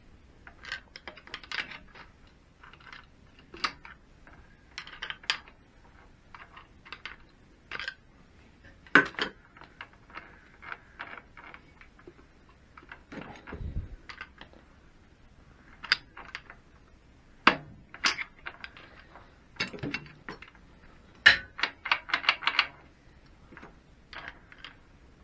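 Sharp metallic clicks and clatter from a Triumph Bonneville four-speed gearbox worked by hand, as the selector is moved with a screwdriver and the shafts are turned to shift the gears back down to first. The clicks come singly and in quick runs, with a dull thump about halfway through.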